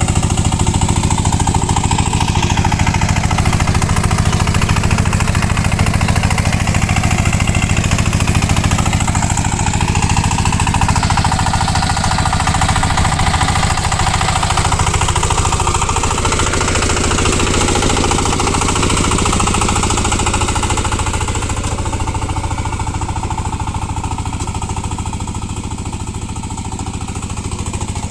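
VST power tiller's single-cylinder diesel engine running steadily with a rapid, even knocking beat.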